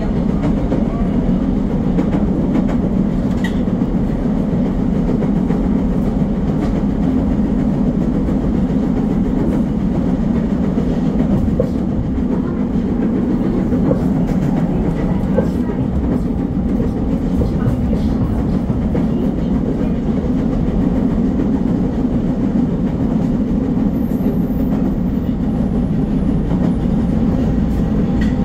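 Nagoya Higashiyama Line subway train running on elevated track, heard from inside the front car: a steady rumble of wheels and running gear with faint clicks now and then.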